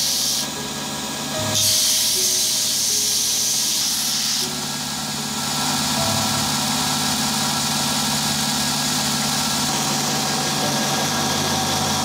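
Belt grinder sanding a dark knife-handle block: a loud, steady hiss of the abrasive belt that drops off briefly twice in the first few seconds as the pressure on the belt changes, then runs on steadily.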